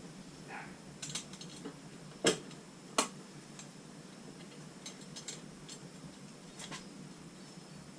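Light metallic clicks and taps from spokes being fitted into a motorcycle wheel, with two sharper clinks a little over two and three seconds in.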